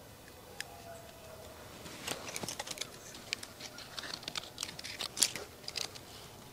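Paracord being wrapped and pulled around a tree trunk while tying off a ridge line with a trucker's hitch: irregular rustling, scraping and small sharp clicks, beginning about two seconds in.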